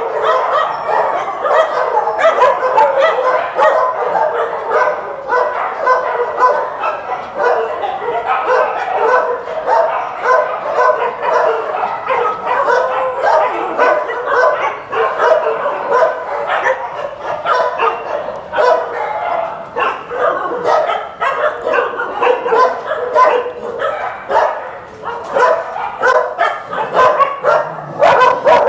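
Many dogs barking and yipping at once, a continuous chorus of overlapping barks with no pause.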